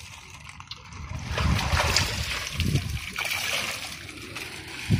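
Water splashing and sloshing as a clear plastic bag is dipped in and filled, then water trickling out of the bag, which seems to be leaking. A short sharp knock just before the end.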